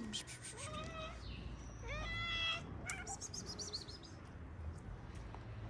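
A cat meowing twice: a short meow about half a second in and a longer, louder meow about two seconds in, followed by a quick run of high chirps.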